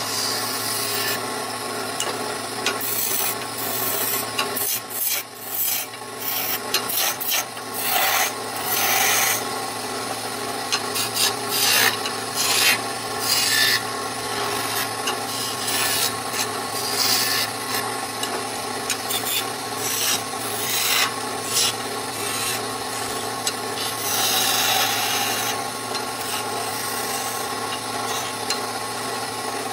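Wood lathe running steadily while a hand-held flat scraper cuts a spinning wooden spindle, the scraping swelling and easing in short irregular passes.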